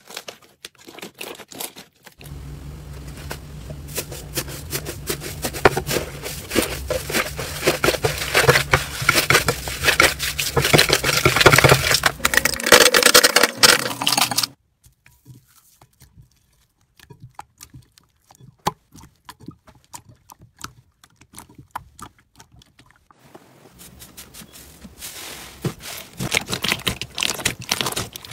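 Slime being squeezed, poked and stretched by hand, making a dense run of small clicks and pops that stops abruptly about halfway through. Only scattered single pops follow, before dense squishing starts again near the end.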